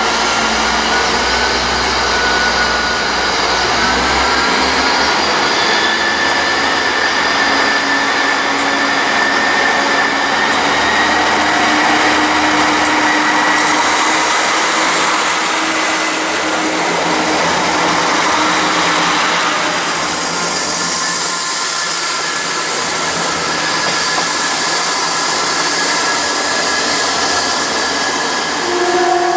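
Class 158 diesel multiple unit pulling away, its engines and transmission whining with a pitch that rises slowly as it gathers speed past. A second unit then approaches with a steady engine hum. A short horn note sounds near the end.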